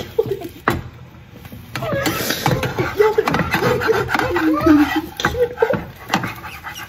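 Young women laughing and giggling, with a couple of sharp knocks in the first two seconds.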